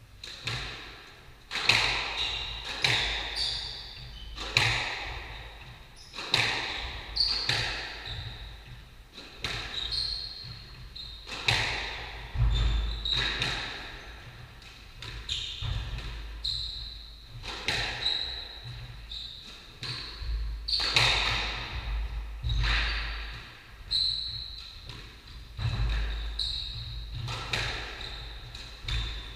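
A squash rally: the ball cracks off rackets and the walls about once a second, each hit echoing around the court, with short high squeaks of shoes on the wooden floor between the hits.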